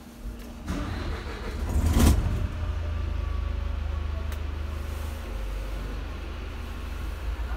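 Volvo bus diesel engine being started: the starter cranks for about a second and a half, the engine catches with a brief surge about two seconds in, then settles into a steady low idle.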